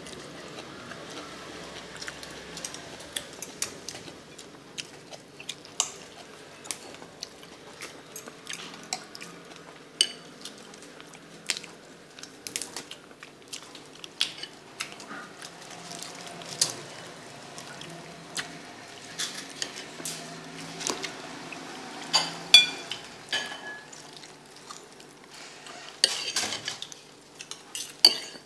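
Metal spoon and fork clinking and scraping against a white bowl as a bowl of noodles and herbs is mixed, in irregular clinks, some with a short ringing tone.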